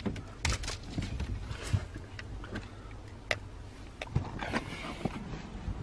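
Scattered clicks, knocks and rustling of hands handling things inside a car, over a low steady hum.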